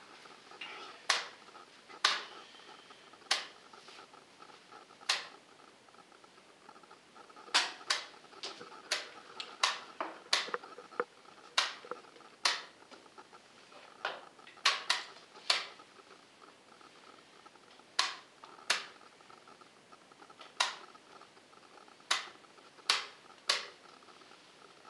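Chess clock buttons being hit and wooden chess pieces set down on the boards: a couple of dozen sharp clicks, irregular and sometimes in quick pairs.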